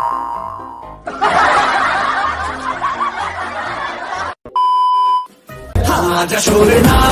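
Edited-in comedy sound effects: about three seconds of laughter, then a short steady beep, then dance music with a beat starting near the end.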